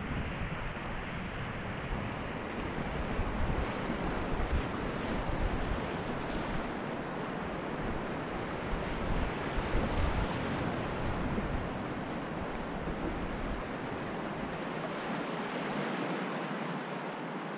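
Whitewater river rushing around an inflatable raft, a steady hiss of moving water, with wind rumbling on the microphone until it dies away near the end.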